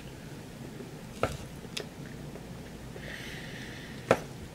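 Quiet eating sounds at a plastic TV-dinner tray: a few light clicks and taps of a utensil, the sharpest about four seconds in.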